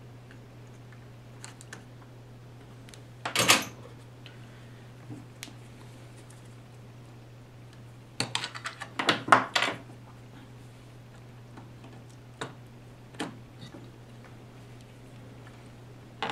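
Hand tools and a circuit board being handled: a short clatter about three and a half seconds in, a longer run of clattering about eight to ten seconds in, and scattered light clicks over a steady low hum.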